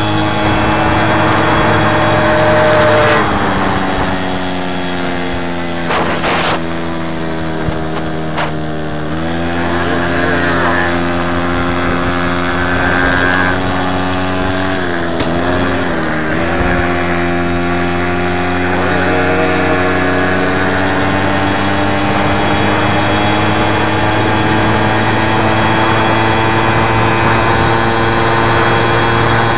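VeloSolex moped's small two-stroke engine running with a steady buzz. Its pitch shifts a few times and climbs slowly over the last ten seconds, with a couple of brief clicks along the way.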